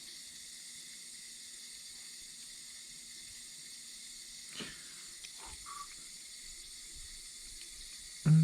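Steady background hiss with a few faint clicks and ticks from small parts being handled, and a short burst of a man's voice right at the end.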